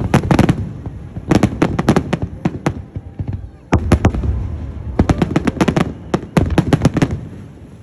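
Fireworks going off in rapid volleys of sharp cracks and bangs, about five clusters with short lulls between them.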